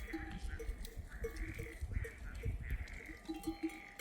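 Sheep bells hung on rams, clanking and ringing irregularly, a few strokes a second, as the animals move about.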